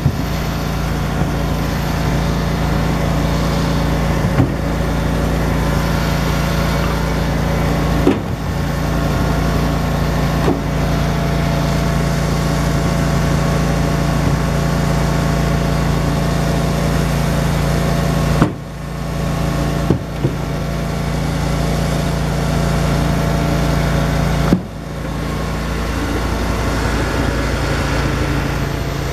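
Cord King firewood processor and elevator running steadily under a constant engine drone. A few sharp knocks stand out, from split firewood riding the elevator conveyor.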